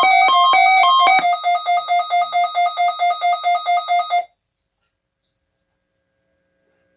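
Weather radio alert alarm: a buzzy electronic tone that switches rapidly between two pitches, then a single tone beeping about four times a second, cutting off suddenly about four seconds in.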